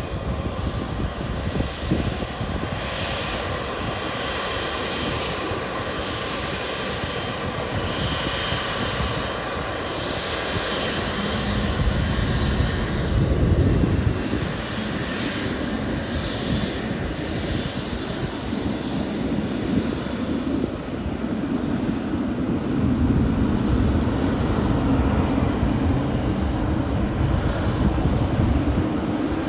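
Boeing 777 twin GE90 turbofan engines running as the jet rolls along the runway, a high fan whine over a heavy rumble. The rumble swells about twelve seconds in and again past twenty seconds.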